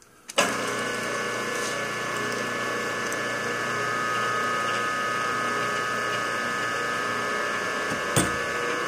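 Milling machine spindle switched on with a sudden start about half a second in, then running steadily with a constant whine while the spiral tap is backed out of the freshly tapped blind hole. A short click comes near the end.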